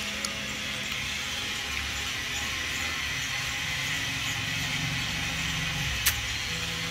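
Indoor bicycle trainers running with a steady whir as two riders pedal road bikes on them, the low hum drifting slightly in pitch with pedalling speed. A single sharp click about six seconds in.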